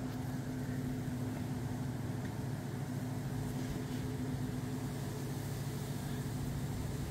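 A steady low mechanical hum holding a few fixed tones, over a faint even hiss.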